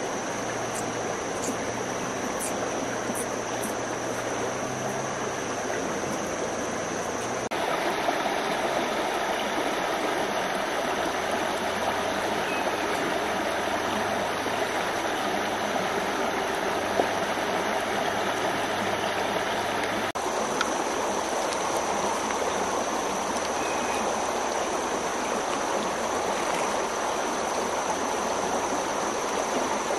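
River water rushing steadily over stones. The sound shifts abruptly twice, about a quarter and two-thirds of the way through, and a faint steady high tone runs under it at the start and again near the end.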